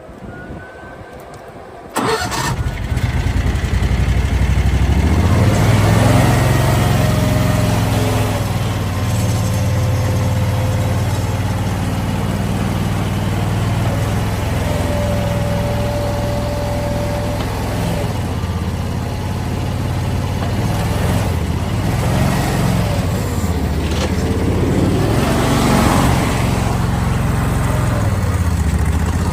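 The 23 hp air-cooled gas engine of a Hurricane HRC700 mini skid steer starts about two seconds in and then keeps running. Its pitch rises and falls a few times as it runs.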